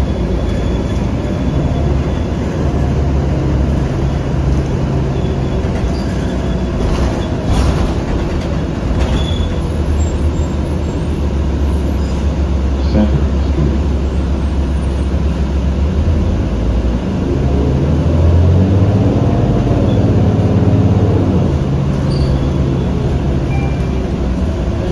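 Cabin noise of a 2008 New Flyer D40LF diesel city bus under way: a steady low engine and drivetrain drone that swells and eases every few seconds as the bus speeds up and slows.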